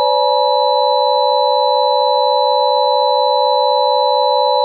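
Emergency Alert System–style attention signal: a loud, steady electronic chord of several fixed pitches held without a break.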